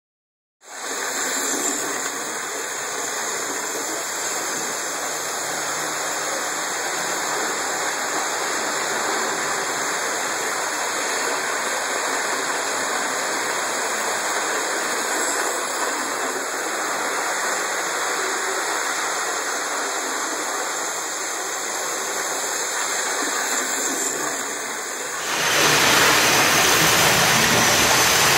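Hornby OO gauge model trains, the repaired APT-P power car among them, running on the layout track: a steady rushing rumble of wheels and motors. About 25 s in the sound steps up louder.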